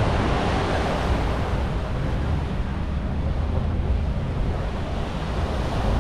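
Surf washing onto the beach, the wash easing after the first seconds and building again near the end, with wind buffeting the microphone.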